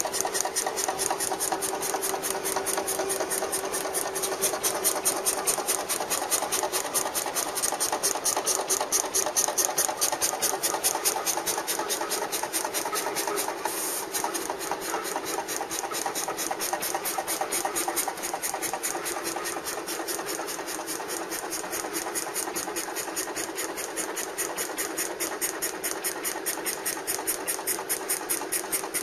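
Graphtec CE-5000 cutting plotter running as its tool carriage works across the paper: a steady motor hum with an even, fast ticking about four times a second.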